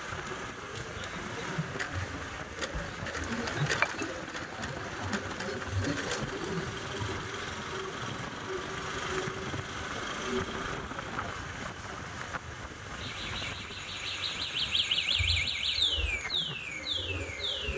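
Road and traffic noise from riding a two-wheeler along a town street: a steady rush of wind and engine with scattered knocks. From about two-thirds of the way in, a run of high, quick chirps that each sweep downward joins it, repeating about twice a second.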